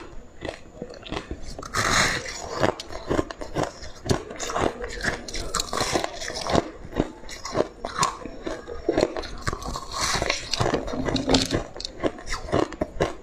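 A person biting into and crunching a chunk of purple-tinted ice: a steady run of sharp crunches and crackles as it is chewed, with louder bites about two seconds in and again near ten seconds.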